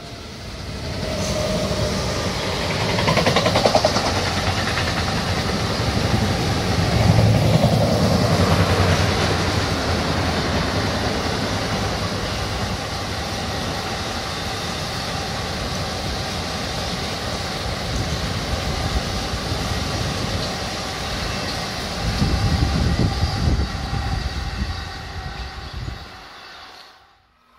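Long freight train of double-deck car-transporter wagons passing on the main line: a steady rumble and rattle of wheels on rail. It is loudest in the first several seconds, stays steady through the middle, swells again near the end, and then cuts off suddenly.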